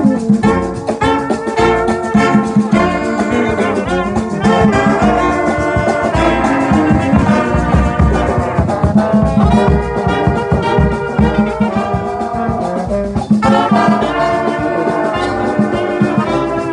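Brass band playing a gospel tune: trombones, trumpet and saxophone carry the melody over a steady beat on bass drum and snare drum.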